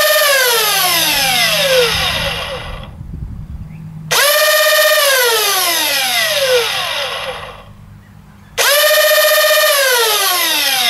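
MTB Neo-Hellcat flywheel motors in a Nerf blaster, run on a 3S LiPo, revved three times. Each time a high whine snaps up to full speed almost at once, holds for a moment, then falls steadily in pitch over a couple of seconds as the flywheels spin down.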